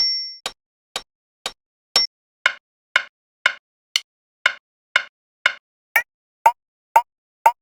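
Cubase metronome clicking two times a second, with a higher beep accenting every fourth beat at first. About two and a half seconds in, the click changes to a duller, lower-pitched sound, and around six seconds in to a lower pitched click: different metronome click sounds being tried in turn.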